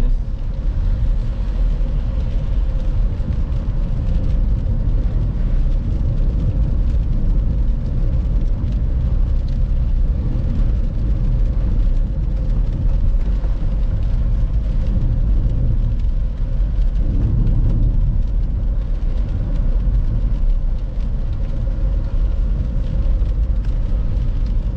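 A car on the move: a steady low rumble of engine and road noise that keeps going without a break.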